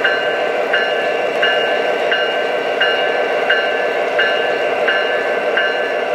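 O scale model train running on its track: a steady whir with a high whine over it and a faint regular tick about every three-quarters of a second.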